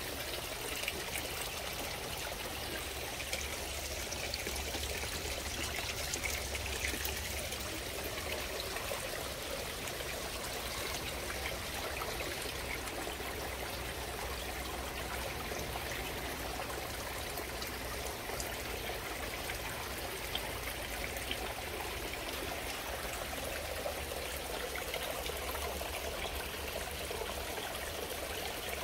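Water trickling and splashing steadily over the rocks of a small garden pond waterfall, over a low steady hum.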